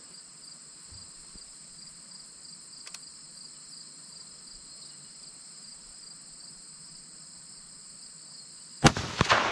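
A single 6.5 Grendel rifle shot near the end, sharp and loud, followed by a few quick fainter cracks within half a second. Under it, a steady high chirring of insects.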